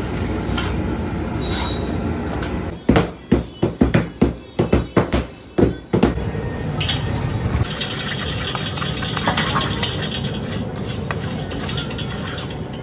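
Street noise, then about three seconds of rapid, heavy thuds as several men pound sesame gajak dough with mallets on stone slabs. After that a steady hiss with light metal scraping in a large iron kadhai.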